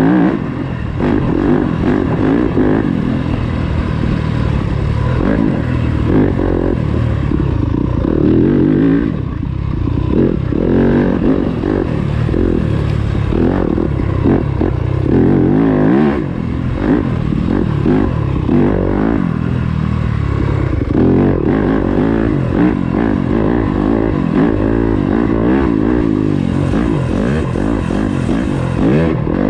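Yamaha YZ250FX four-stroke single-cylinder dirt bike ridden hard off-road, its engine note rising and falling over and over as the throttle is opened and closed, with brief drops in revs along the way.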